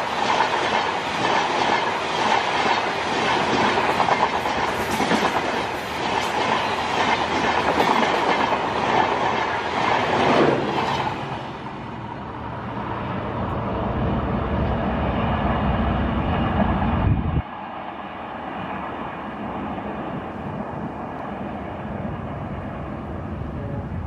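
Red LHB passenger coaches of an express passing close by at about 90 km/h, wheels clattering rhythmically over the rail joints. About ten seconds in the sound falls in pitch as the last coach goes by, leaving a lower receding rumble. An abrupt cut about seventeen seconds in leaves a quieter, steady train rumble.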